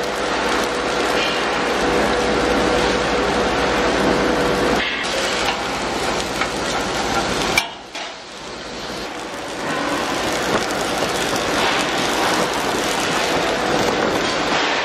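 Factory machinery running: a steady, loud clattering noise with a faint steady hum, dropping out briefly twice near the middle.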